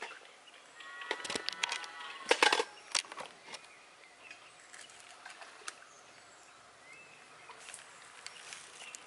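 Faint outdoor background with a short animal call of several held tones about a second in, followed by a few sharp clicks around two and a half seconds in.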